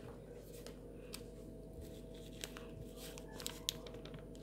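Faint, scattered light crinkles and clicks of a foil ramen seasoning packet being handled and emptied over the noodles, over a steady low room hum.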